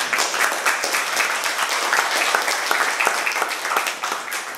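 Small audience applauding, many hands clapping together, dying away near the end.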